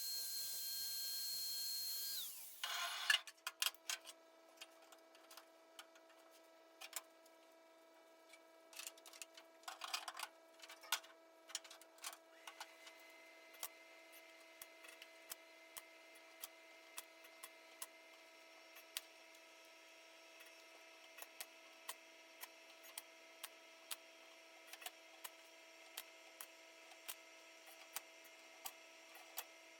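A high-pitched power tool hisses and whines steadily, then stops abruptly about two seconds in. After that a faint steady hum runs on, with scattered light clicks and ticks.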